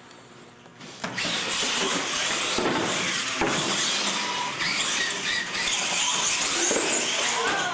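Radio-controlled monster trucks launching off the start line about a second in and racing across a concrete floor: a sudden, loud, steady whine of motors and tyres.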